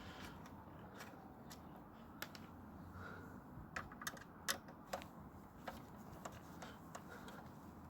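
Scattered light clicks and ticks, irregular and about a dozen of them, the loudest around the middle: small plastic and metal parts of a Samsung laser printer being handled and worked loose while it is taken apart.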